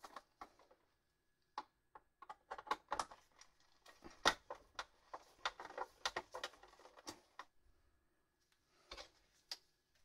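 Irregular clicks, taps and light knocks of hard plastic and a screwdriver as the back of a mini fridge is handled and worked on by hand. They are busiest through the middle, stop for about a second near the end, then come back with a couple more.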